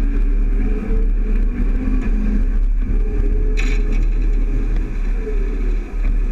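Tractor-drawn grain cart and farm machinery running, a loud steady low rumble with wavering engine tones and wind buffeting the microphone; a brief hiss about three and a half seconds in.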